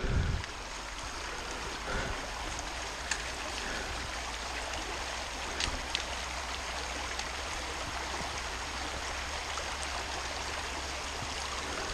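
Shallow mountain creek running over rocks: a steady, unbroken rush of water. A brief low thump comes at the very start.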